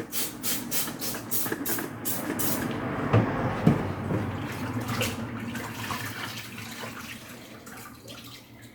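Water splashing and running as a cleaning towel is wetted: a quick run of short spurts, about three a second, for the first couple of seconds, then steadier splashing that slowly fades.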